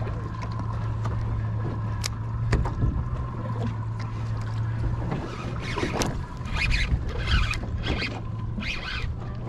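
Fishing boat's engine idling with a steady low hum. From about halfway, short scratchy bursts come a little under a second apart, with a few sharp clicks earlier on.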